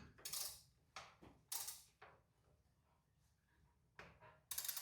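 A few faint, short clatters and knocks, spaced irregularly with near quiet between them, typical of tools or parts being handled at a car's engine bay.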